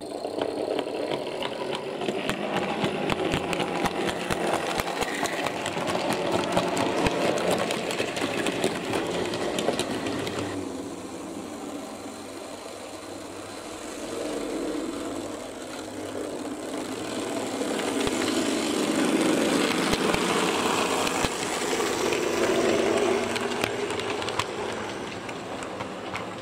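Model railway trains running on the track: small electric motors whirring and wheels clicking over the rail joints. The sound changes about ten seconds in and grows louder in the second half as a rake of coaches passes close.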